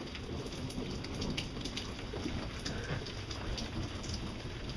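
Steady rain during a storm, with scattered sharp drop hits and a low rumble underneath.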